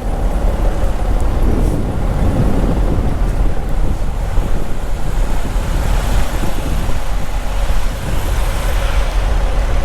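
Steady low rumble with a faint steady hum over it, typical of diesel trucks idling around a snowed-in truck stop.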